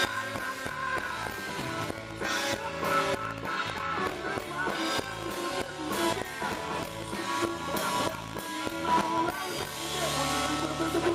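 Live band playing, with guitar to the fore.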